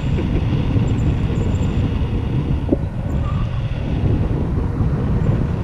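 Wind rushing over the microphone in flight, a loud, steady, low rumble.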